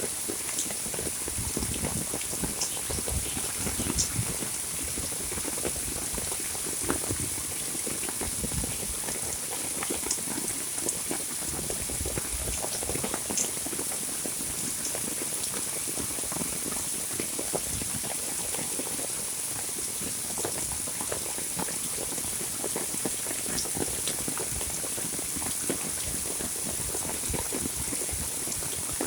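Heavy monsoon rain falling steadily, a dense patter of drops with occasional louder individual splashes.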